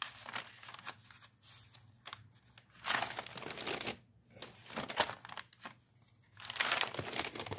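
Old, dry paper sheets rustling and crinkling as they are handled and turned over, in several separate bursts.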